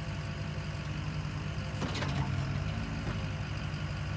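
Geoprobe direct-push drill rig's engine running steadily, with a couple of short knocks about two and three seconds in.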